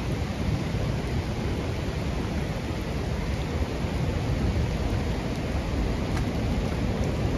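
Steady, deep rushing of a swollen, muddy river running high in flood after heavy rain.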